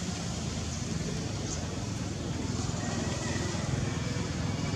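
Steady outdoor background noise, a low rumble with hiss, with a few faint high-pitched calls near the end.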